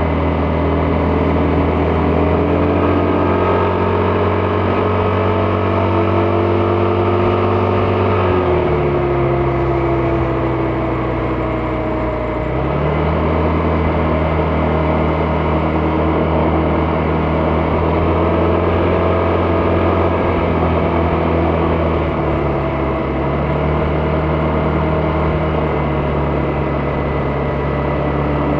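Vespa GTS 300 scooter's single-cylinder engine running under way at a steady speed. Its pitch drops as it slows about eight seconds in, then picks back up around twelve seconds, with a smaller dip near the end.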